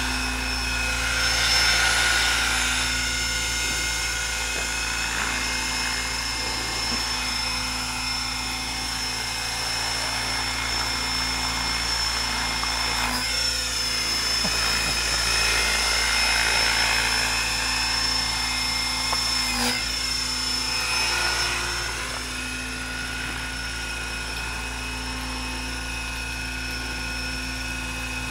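600-size radio-controlled model helicopter flying: a steady high whine over a rotor whir, with the pitch dipping and recovering twice. It is a little quieter for the last few seconds.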